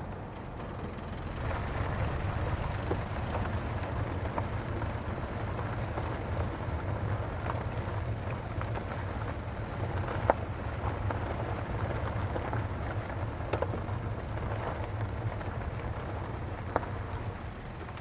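Car tyres rolling over a rough road surface: a steady low rumble with a crackle of grit and small stones. Scattered knocks from bumps, the sharpest about ten seconds in and another near the end.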